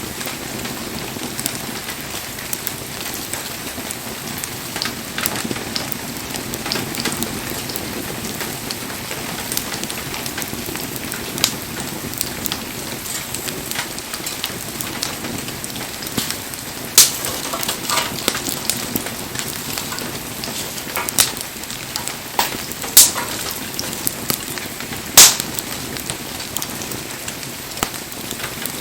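Wood fire crackling: a steady hiss broken by frequent sharp pops and snaps. The loudest pops come in the second half.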